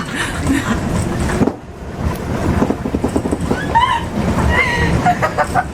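New York subway train running, a loud steady rumble heard from inside the car, dipping briefly about one and a half seconds in.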